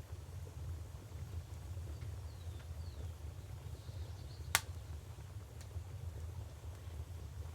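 Wood fire crackling with sparse small snaps and one sharp pop about four and a half seconds in, over a steady low river rumble. A few faint bird chirps come in just before the pop.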